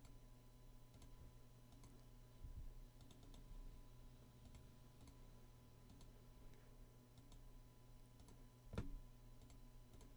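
Near silence: room tone with a steady low electrical hum and scattered faint clicks, typical of a computer mouse being used, with one louder click about nine seconds in.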